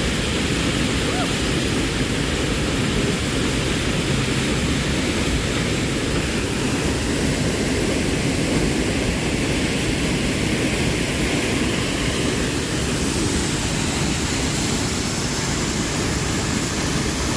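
Steady rushing of a river or waterfall, an unbroken roar of water.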